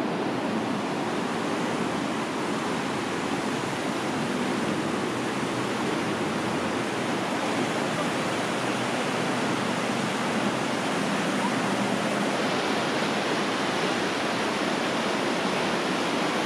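A rocky mountain river rushing over boulders and small rapids: a steady, even wash of water.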